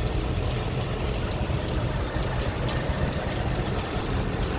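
Heavy rain falling steadily, a dense hiss full of fine pattering ticks, with a continuous low rumble underneath.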